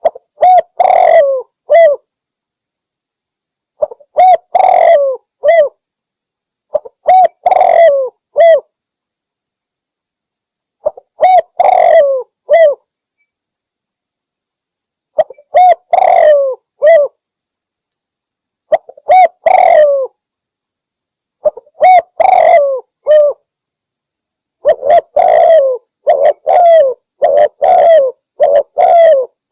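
Spotted dove (Javanese derkuku) cooing: a short phrase of a few low coos repeated every three to four seconds, the phrases coming closer together near the end.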